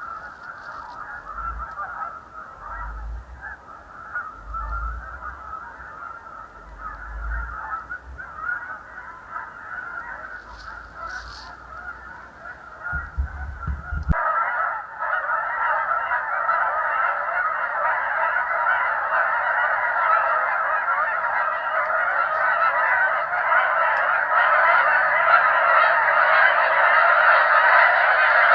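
A large flock of geese honking in a dense, continuous chorus of many overlapping calls. About halfway through it cuts abruptly to a louder, fuller chorus that keeps growing as the flock comes in closer.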